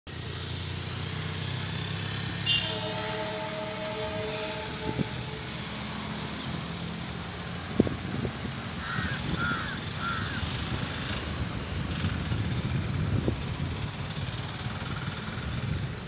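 A distant WDP4 diesel locomotive sounds its horn once, a chord of several steady tones lasting about two and a half seconds, starting a few seconds in, over a steady low rumble of the approaching train. A single sharp knock comes about halfway through.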